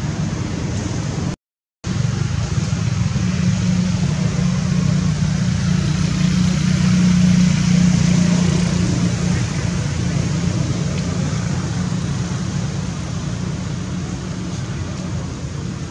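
A motor vehicle passing: a low engine hum over a steady hiss that builds to its loudest about halfway through, then slowly fades. The sound cuts out completely for a moment about a second and a half in.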